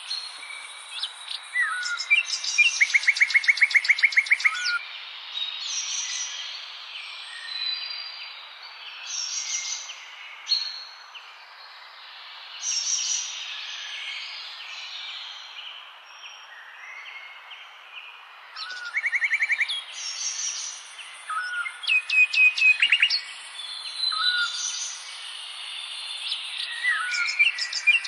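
Several songbirds singing and calling over one another: short chirps and whistles mixed with fast trills of rapidly repeated notes. Louder bursts of song come near the start, in the second half and again at the end, with quieter, sparser calling in the middle.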